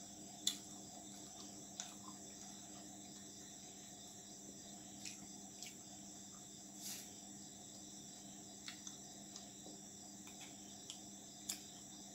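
Quiet eating sounds of roti and crunchy aloo bhujia being torn and chewed by hand: a few scattered soft clicks and crunches, the sharpest about half a second in and another near the end. Under them run a steady low hum and a constant high chirring of insects.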